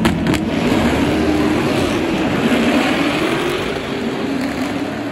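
A field of SuperUtes race utes accelerating away from the grid together. Their engine notes rise and fall as they shift gears, and the sound fades gradually as the pack pulls away down the straight.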